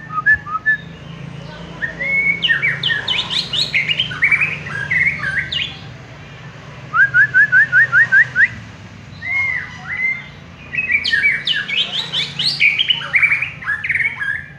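White-rumped shama (murai batu) singing a loud, varied song of gliding whistled phrases and rapid trills, with a run of about seven quick rising notes around the middle.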